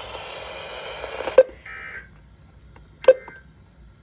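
Weather radio hiss, then the short buzzy data bursts of the SAME end-of-message code, repeating about every 1.3 seconds, which close the weekly test broadcast. Two sharp clicks, the loudest sounds, come just before and with the bursts.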